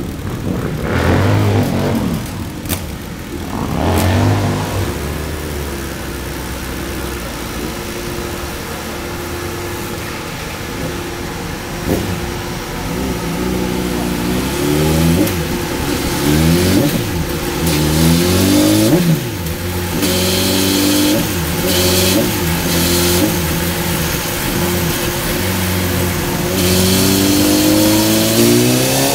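Honda CBR1000RR's inline-four engine with an Akrapovic exhaust, running on a chassis dyno. It gives two short revs, idles, then a string of quick throttle blips rising and falling in pitch. Near the end a steady climb in revs begins, the start of a dyno pull.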